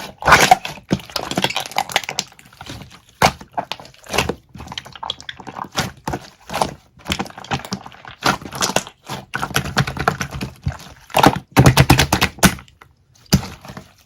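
Slime being squished, pressed and stretched by hand, giving runs of sticky popping and crackling clicks with short pauses between handfuls.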